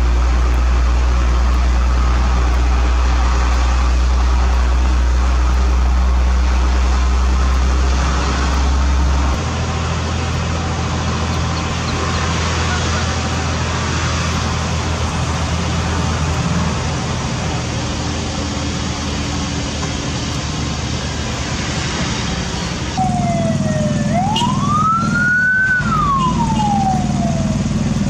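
Heavy diesel engines running with a deep steady rumble that eases about nine seconds in. About 23 seconds in the sound changes abruptly and a siren wails, rising and falling once over about three seconds and starting to rise again at the end.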